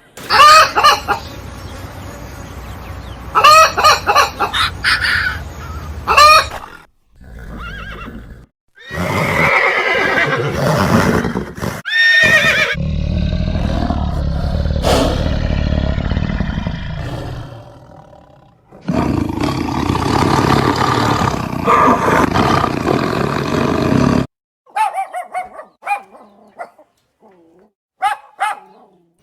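A string of short animal-call clips cut one after another, changing abruptly with brief silent gaps between them; several hold pitched calls repeated a few times in quick succession.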